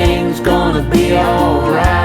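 Background song playing: a wavering melody line over a steady bass and a regular beat.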